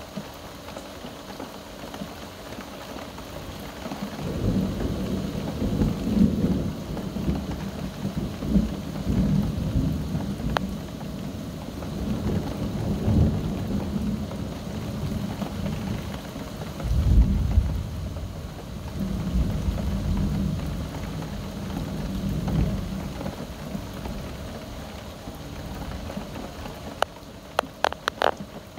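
Steady rain with a long roll of thunder that starts a few seconds in, swells several times and is loudest about two-thirds of the way through before fading. A few sharp clicks near the end.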